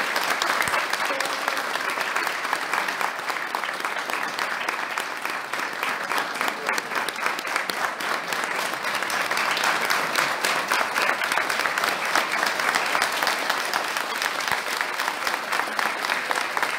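Sustained applause from a large audience of pupils and staff, many hands clapping at once.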